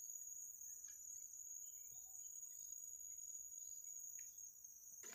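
Steady high-pitched insect chorus in tropical forest, a thin continuous ringing with a couple of faint light ticks.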